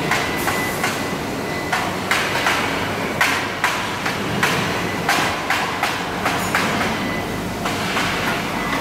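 Machinery noise on a car body-welding line: a dozen or so irregular sharp metallic clacks and clanks from the welding fixtures and robots, over a steady factory din.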